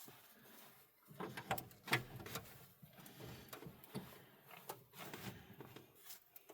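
Irregular metal clicks, knocks and scraping of a battery ground clamp being worked and tightened onto a battery post with a hand tool, starting about a second in.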